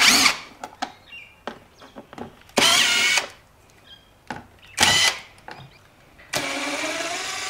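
Cordless power driver whirring in four short runs as it backs Torx screws out of a motorcycle's airbox cover; the last run is the longest, about a second and a half. Light clicks of handling come between runs.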